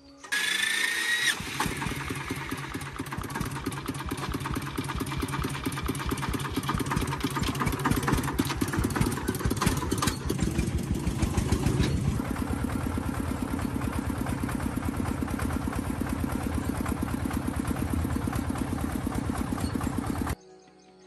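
An engine is cranked by its starter with a short rising whine, catches about a second in and runs with a fast, even firing. Its speed rises briefly about ten to twelve seconds in, then settles to a steady run. The sound cuts off abruptly near the end.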